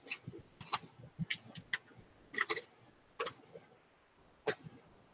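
Chewing gum package being handled and opened by hand: a string of sharp, irregular clicks and crinkles.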